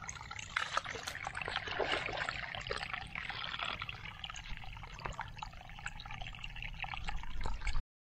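Shallow running water trickling and gurgling through a small muddy channel in a rice field, with many small splashes, cutting off suddenly near the end.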